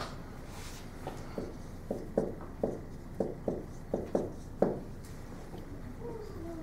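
Footsteps on a hard floor: about ten light steps over some four seconds, then they stop.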